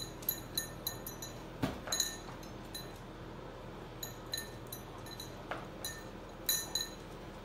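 Faint, light metallic clinking as a small fluffy dog moves about: well over a dozen short ringing clinks at irregular intervals, with a soft thud about one and a half seconds in.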